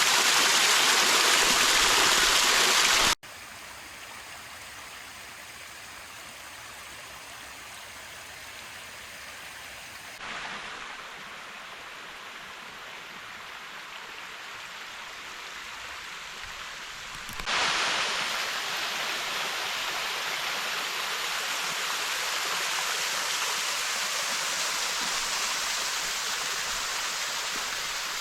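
Rushing water of a creek or small waterfall. It is loud at first, drops abruptly to a much quieter rush about three seconds in, and grows loud again after about seventeen seconds.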